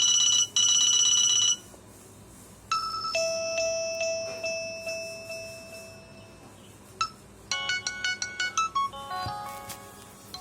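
Nokia feature-phone ringtones and alert tones played one after another. First a loud, rapid electronic beeping in two quick bursts, then a short chiming melody that fades out, a single ding, and a fast melodic ringtone.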